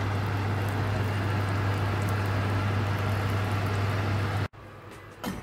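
Duck fat sizzling and spitting in a glass roasting dish inside a hot oven, over a steady low hum from the oven. The sound cuts off suddenly about four and a half seconds in, leaving something much quieter with a few light clicks.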